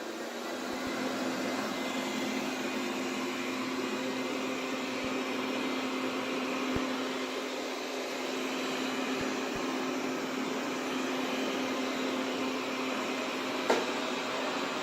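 Xiaomi Mi Robot Vacuum (first generation) running with a steady motor hum and suction whir, settling to a constant level about a second in. A single sharp click sounds near the end.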